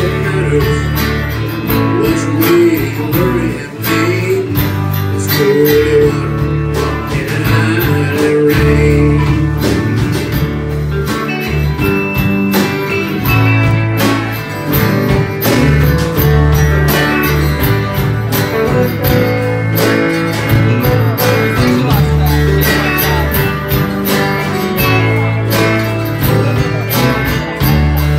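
Live country band playing an instrumental passage: several strummed acoustic guitars with electric guitar, mandolin, bass and drums.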